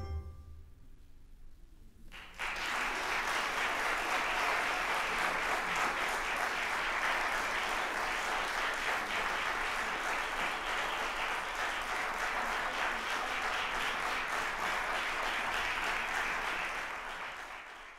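The last handbell notes die away, then an audience breaks into applause about two seconds in, clapping steadily and tapering off near the end.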